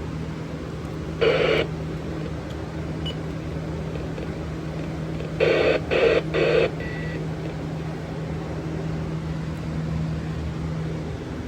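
Short electronic beeps over a steady low hum: one beep about a second in, then three quick beeps in a row about four seconds later.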